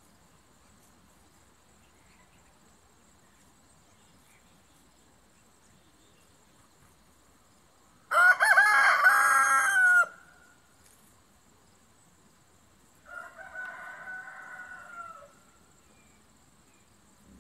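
Rooster crowing loudly once, a call of about two seconds, with a fainter rooster crow following a few seconds later.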